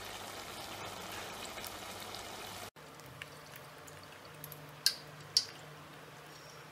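Murukku deep-frying in hot sunflower oil, a steady crackling sizzle. After an abrupt cut, the sound turns quieter with a low hum, and a metal ladle clinks sharply twice against the pot about five seconds in as the fried murukku is lifted out.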